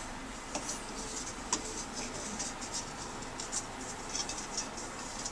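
PTFE thread-seal tape being stretched and wound by hand round a threaded fitting: faint, irregular scratchy rustling with small ticks.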